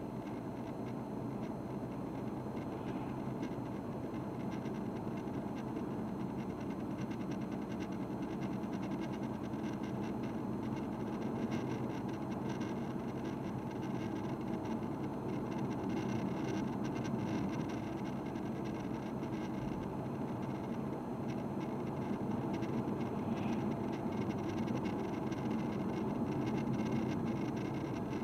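A vehicle's engine running steadily, with a constant low hum and running noise that grows a little louder about halfway through.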